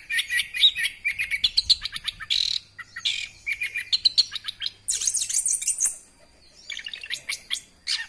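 Chestnut-capped thrush (anis kembang) singing a fast, unbroken run of varied chirps and trills, a mix of mimicked songs of other birds. The song breaks off briefly about six seconds in and then resumes.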